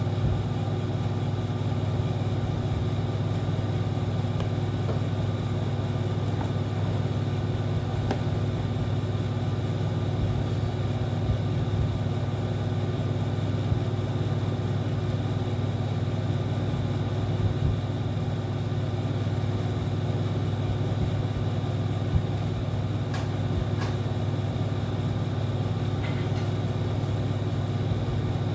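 Air conditioner running with a steady low hum and a few faint steady tones above it.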